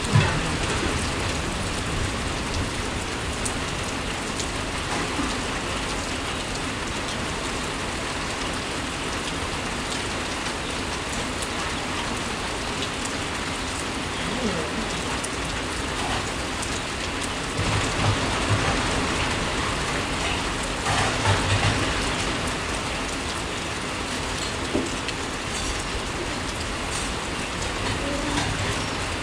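Heavy rain pouring down steadily, twice swelling louder for a second or two past the middle.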